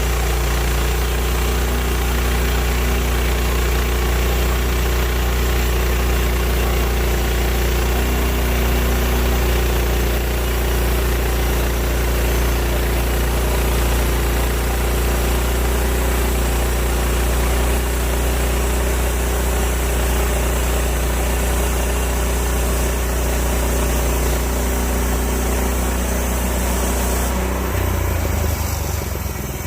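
Woodland Mills HM130 bandsaw sawmill running steadily under load, its engine driving the band blade through a red oak log as it cuts a board. The low hum shifts and the level dips slightly near the end.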